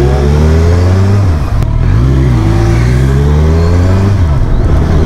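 Kawasaki Ninja 1000's inline-four engine on its stock exhaust, heard from the rider's seat while riding, with its pitch climbing and dipping a few times as the throttle opens and closes.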